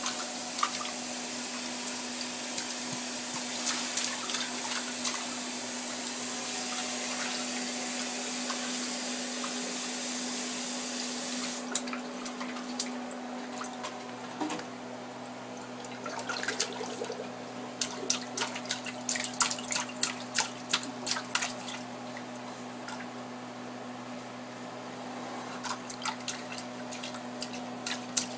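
A baby's hand splashing and slapping water in a ceramic dog water bowl: scattered splashes at first, then quick runs of splashes in the second half. A steady low hum sits underneath throughout.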